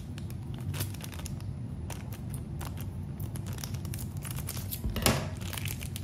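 Scissors cutting open a black foil blind-bag pouch: repeated small clicks of the blades and crinkling of the foil, with one louder crackle about five seconds in.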